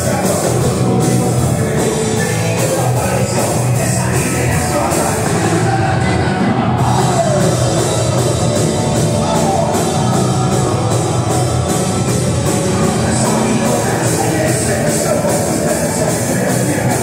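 Live punk band playing loud rock through the club PA: distorted guitars, a fast steady drum beat and sung vocals, heard from inside the crowd.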